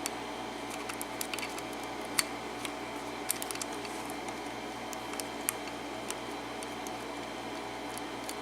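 Small, irregular metallic clicks of a lock pick and tension wrench working the pin stack of a Master Lock No. 27 padlock during single-pin picking, over a steady background hum.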